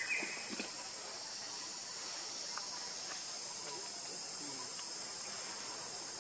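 Steady high-pitched chorus of insects, such as crickets or cicadas, droning on without a break, with a few faint soft clicks.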